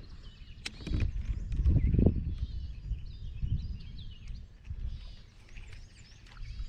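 Wild birds chirping and calling over a low rumble of wind noise on the microphone. The rumble swells about one to two and a half seconds in, then eases.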